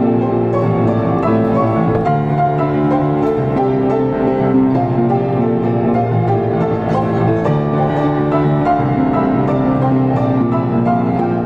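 A Diapason grand piano played solo: a flowing passage of held notes and chords at an even level.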